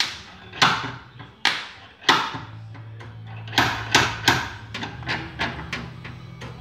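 Slide hammer pulling a dent from a car's body panel through a glued pull tab. Its weight strikes the stop in sharp metallic clacks: four spaced pulls, then from about three and a half seconds in a quicker run of lighter ones, about a dozen in all. This is paintless dent repair, drawing the dented metal back out.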